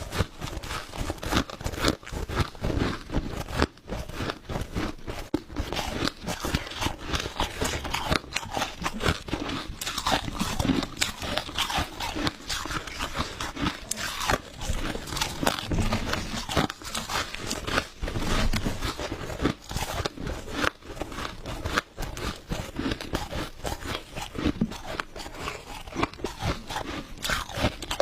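Crushed ice being bitten and chewed close to the microphone: rapid, continuous crunching with many sharp cracks.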